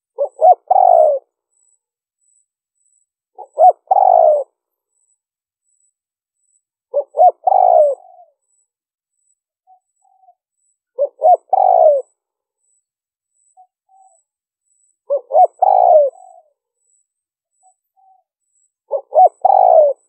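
Spotted dove cooing: a short phrase of two or three quick notes running into a longer coo, repeated six times about every four seconds.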